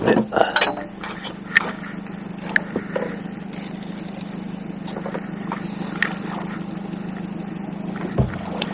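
Small fishing boat's motor running steadily at idle, a constant low hum. Sharp knocks and clicks come in the first second or so and a few more scattered after, as a cod is brought up to the boat.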